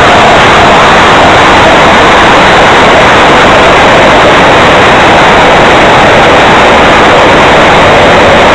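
70 mm electric ducted fan on an RC plane in flight, heard through the onboard camera's microphone together with rushing air: a loud, steady rush of noise with a faint whine that wavers slightly in pitch.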